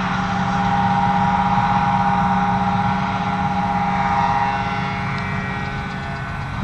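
John Deere 7750i self-propelled forage harvester chopping grass alongside a New Holland tractor pulling a trailer: the machines' engines run with a steady drone and a steady higher whine, easing off slightly near the end.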